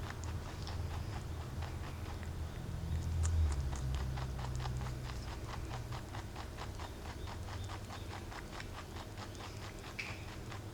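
Mini-Lop rabbit chewing carrot peel, a fast, even run of crisp crunching clicks, about four or five a second, like a typewriter. A low rumble swells briefly about three seconds in.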